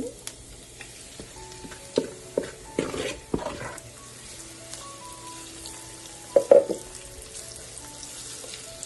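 Rice-flour-coated chicken cubes going into hot oil in a frying pan and sizzling, with a few knocks of pieces and utensil against the pan about two to three and a half seconds in and a louder knock about six and a half seconds in.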